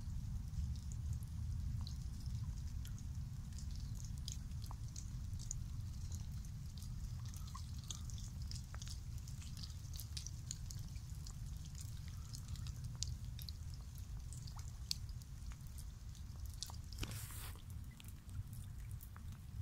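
Light rain falling on a lake, with scattered drops ticking and dripping, over a steady low rumble. Near the end there is a brief louder rush.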